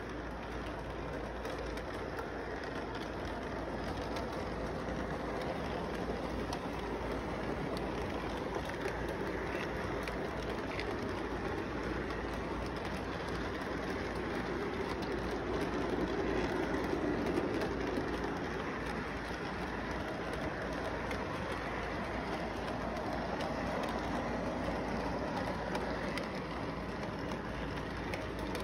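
Model train rolling along its track, a steady rumble from its wheels and motor that swells and then eases off again after about two-thirds of the way through.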